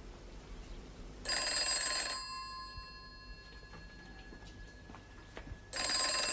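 Telephone bell ringing twice. Each ring lasts about a second, and the rings come about four and a half seconds apart.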